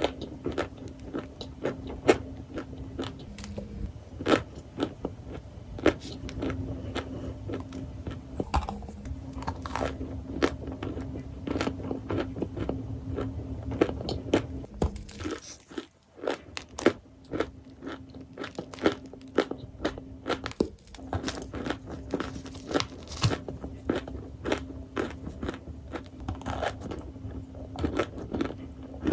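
Crunchy balls being crunched: a dense run of sharp crunches and crackles over a low steady hum, with a brief break about halfway through.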